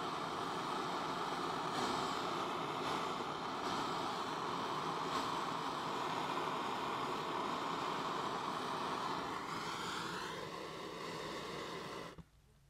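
Handheld gas blowtorch burning with a steady hiss. About ten seconds in the flame sound weakens and a brief rising whistle appears, then the sound stops abruptly.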